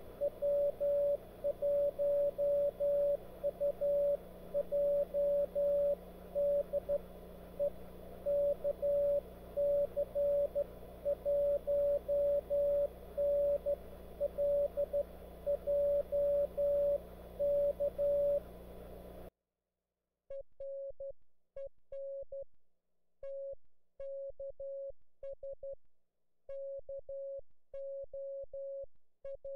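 Morse code (CW) from an amateur radio contact: a single steady tone keyed on and off in dots and dashes at a steady pace. For about the first two-thirds it is heard over band hiss and a low hum. After a brief break near the end it goes on as a clean tone with no background.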